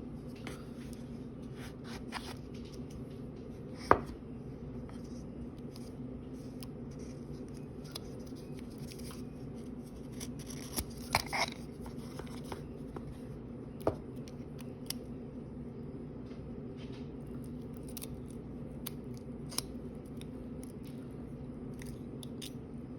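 Sporadic light clicks, taps and rustles from handling packaging during an unboxing, over a steady low hum. The sharpest click comes about four seconds in, and a quick cluster follows around the middle.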